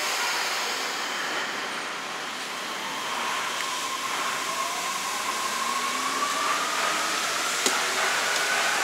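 Yui Rail monorail train pulling out of the station: a rising motor whine as it picks up speed, over the steady running noise of the train. A single sharp click sounds near the end.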